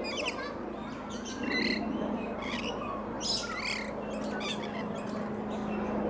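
Lorikeets calling: a series of short, high calls, about six of them, spread through a few seconds.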